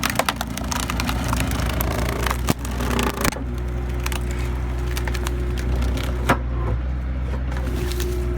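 Skid steer engine running steadily with the wood splitter attachment working, a held whine starting about three and a half seconds in. Several sharp cracks cut through it, the loudest about six seconds in.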